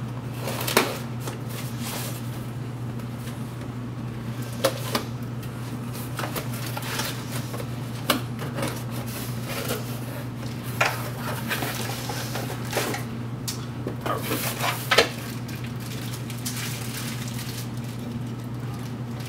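Hands rummaging through a cardboard box of 3D-printer accessories: hard plastic parts and packaging clattering and rustling, with scattered sharp knocks and clicks over a steady low hum.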